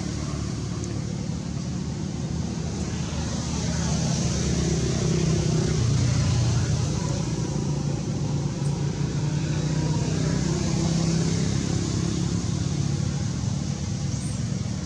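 A motor engine running steadily with a low rumble, a little louder in the middle.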